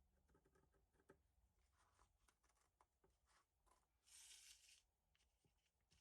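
Faint handling sounds of sheet material being worked on a bench: scattered small clicks and taps, with one brief rustle about four seconds in.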